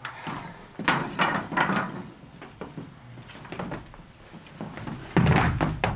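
Sneakers stepping, scuffing and stamping on a wooden floor, a run of knocks with a heavy thud about five seconds in.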